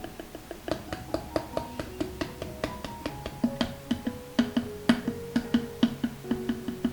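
Background music: a gentle melody of short held notes stepping up and down over a quick, even wood-block-like clicking beat.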